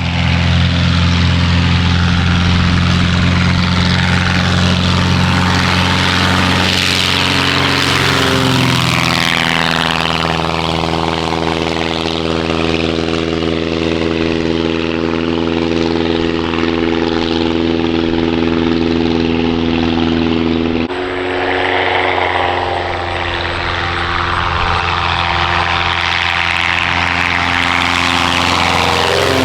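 Avid Flyer light aircraft's engine and propeller running steadily at high power, loud. The engine note rises about eight seconds in, and the sound changes abruptly about twenty-one seconds in.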